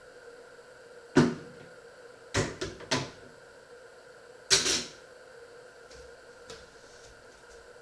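Kitchen clatter of things being handled: a sharp knock about a second in, a quick run of three knocks a little later, and another loud knock near the middle, over a faint steady hum.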